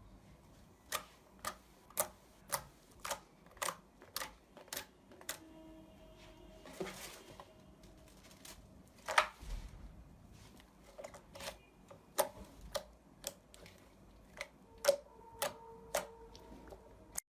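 Slime being pressed and handled, popping in a run of sharp clicks about two a second, then at irregular intervals with the loudest pop about nine seconds in.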